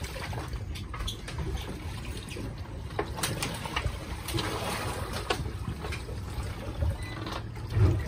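Sea water lapping and splashing against the hull of a small drifting boat, with wind buffeting the microphone and scattered light clicks. A low thump comes just before the end.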